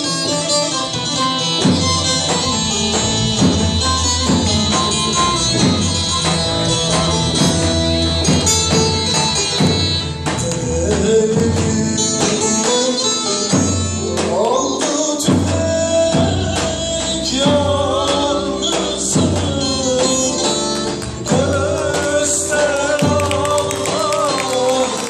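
Live Turkish folk song on bağlama (long-necked saz), electronic keyboard and a square frame drum, with a steady beat. A woman's singing voice comes in over the band about halfway through.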